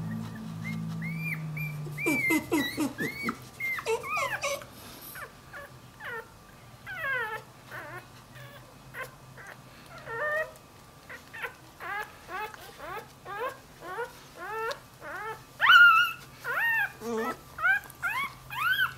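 Newborn Dachshund–Jack Russell cross puppy whining in short high cries that rise and fall in pitch, coming faster and louder towards the end: a puppy crying for its mother.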